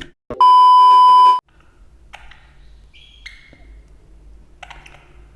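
A single loud electronic beep, one steady tone about a second long that cuts off sharply, followed by a few faint clicks over quiet room sound.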